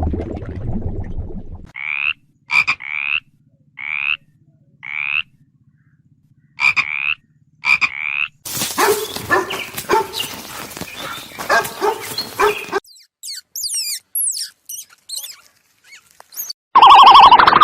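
A sequence of animal calls: a run of short, separate calls repeated about once a second, then a dense stretch of rapid pulsing calls, then scattered high chirps. Near the end a loud, steady two-tone sound cuts in.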